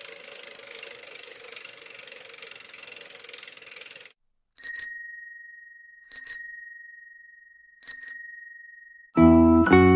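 A steady hiss for about four seconds, then a bicycle bell rings three times, each ring fading out, about a second and a half apart. Music with plucked guitar comes in near the end.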